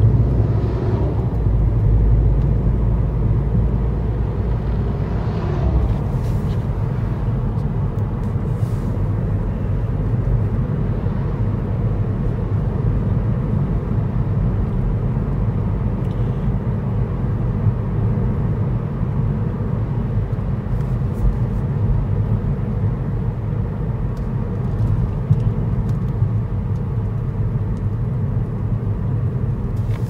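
Car driving along a road: a steady low rumble of engine and tyre noise.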